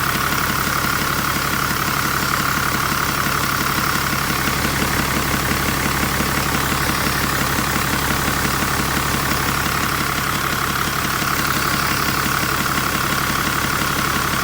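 Engine idling steadily with a turbocharger whistle held at one high pitch throughout. The whistle comes from a 'pente' (comb) fitted in the turbo to make it sing.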